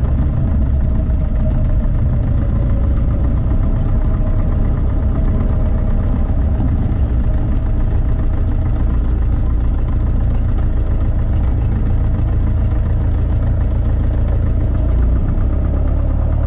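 Beechcraft Sundowner's four-cylinder Lycoming O-360 engine running steadily at low power, heard from inside the cabin as the plane rolls along the runway after touchdown.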